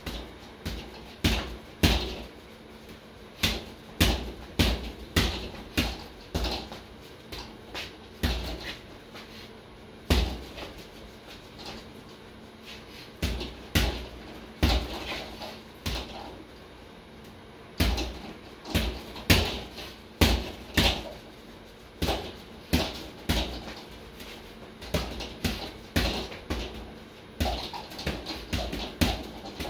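Boxing gloves striking a double-end bag in quick combinations of two to four hits, with brief pauses between flurries.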